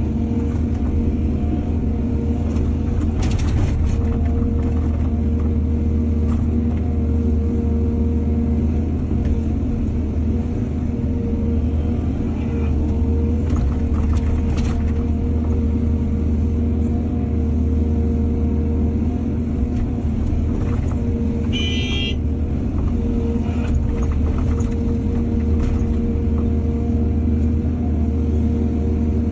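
Heavy diesel engine of earthmoving machinery running steadily with a low hum, with a few sharp knocks and a brief high squeal about three-quarters of the way through.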